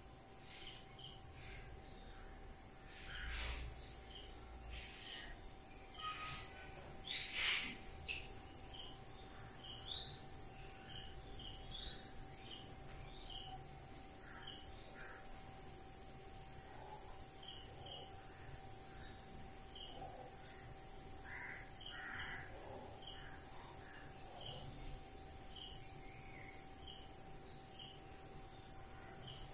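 Insects trilling in a steady high-pitched drone, with short chirps repeating about twice a second. Two brief harsh calls cut through in the first few seconds, the second the louder.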